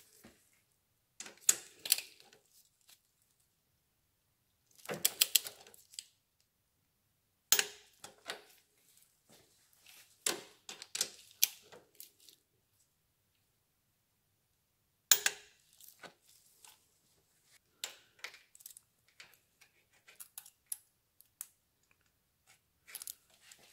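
Several short bursts of rapid metallic clicking from a ratchet torque wrench and socket tightening a valve-adjuster locknut on a Yamaha Drag Star 1100's cylinder head, the locknut being brought up to its 27 Nm torque.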